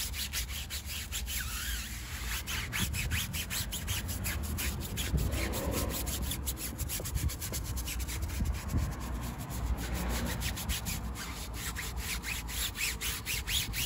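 Stiff-bristled tyre brush scrubbing a wet, snow-foamed car tyre in rapid back-and-forth strokes.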